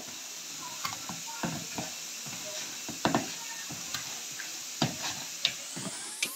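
Hand kneading soft samosa dough in a plastic bowl: irregular soft thumps and squelches as the dough is pressed and turned against the bowl, over a steady hiss.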